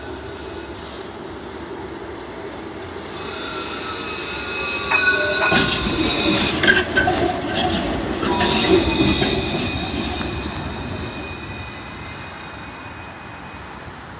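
A Melbourne C Class (Alstom Citadis) tram rolls into a platform stop and passes close by, with a rumble, a high-pitched squeal and a gliding whine, and a few sharp clicks over the rails. It is loudest about five to ten seconds in as it goes past, then fades as it draws to a halt.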